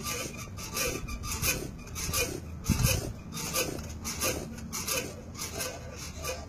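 Dog hanging on and tugging a springpole tire toy: a rhythmic scraping and rubbing, about three strokes a second, as it jerks the tire and rope, with a heavy thud just under three seconds in.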